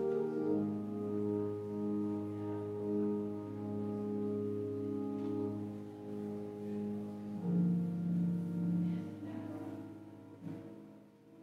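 Church organ playing slow, sustained chords, the notes held steadily and changing every second or two, growing softer near the end.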